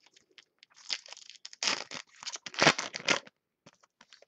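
A trading-card pack wrapper being torn open and crinkled, in three short bursts of tearing and crackling, with light card clicks around them.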